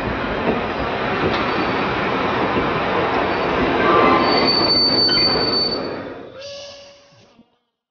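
Train running past with a dense rushing rumble, a high steady wheel squeal from about four to five and a half seconds in, then fading out over the last two seconds into silence.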